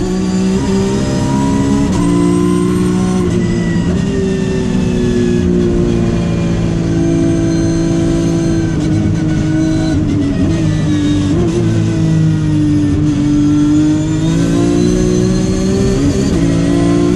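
Porsche 911 GT3 Cup race car's naturally aspirated flat-six running hard, heard from inside the cockpit, its pitch rising and falling as the car accelerates and slows through the corners.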